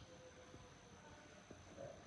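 Near silence: room tone with a few faint, short ticks.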